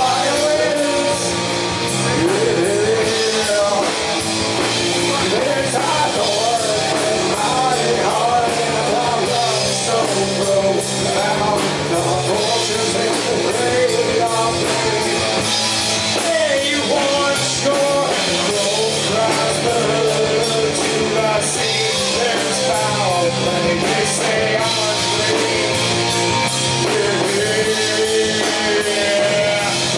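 Live rock band playing: a man singing into a microphone over electric guitar, bass guitar and drums, loud and continuous.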